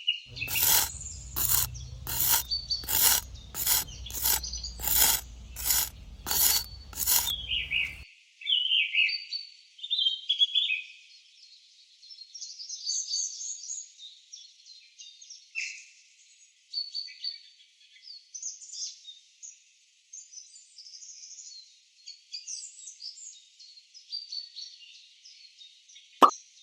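Birds chirping and singing. For the first eight seconds a regular run of sharp knocks, about one and a half a second, plays over a low hum, and a few sharp plops come right at the end.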